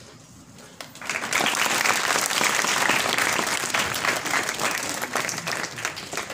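An audience applauding: clapping breaks out suddenly about a second in and goes on steadily.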